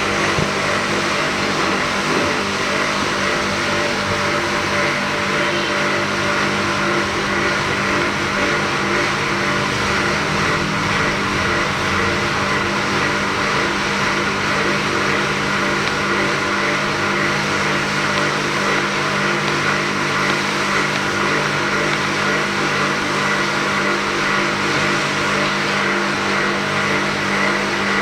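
Pressure washer running steadily during floor cleaning: a constant motor hum under an even hiss.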